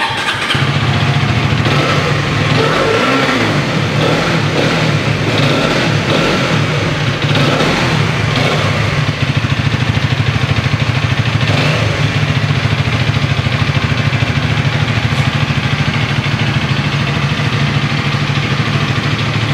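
Hero Karizma XMR 210's 210 cc single-cylinder engine heard at its exhaust, starting up about half a second in. It is revved lightly a few times in the first several seconds, then idles steadily with a sweet note.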